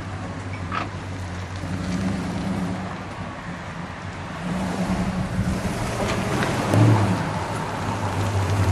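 1969 Dodge Charger R/T's 440 cubic-inch V8 running as the car is driven at low speed and turned around. The note rises and falls with the throttle, with a louder moment near the seven-second mark.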